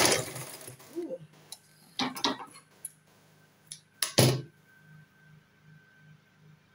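A sewing machine's stitching run stops just after the start, followed by a few sharp metal clicks and clinks and two louder knocks about four seconds in, as steel scissors and the machine's needle area are handled.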